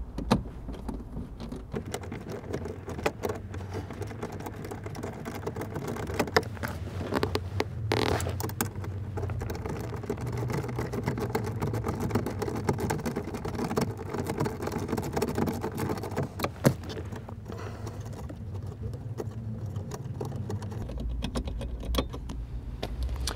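10 mm socket ratchet clicking in quick runs as a bolt behind the centre console is undone, with light metallic clinks, over a low steady hum.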